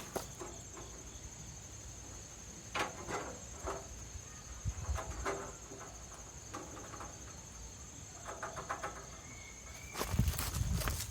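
Scattered clicks and knocks of hand work on a band sawmill's blade and tensioner, with a louder cluster of knocks near the end, over a steady high insect trill.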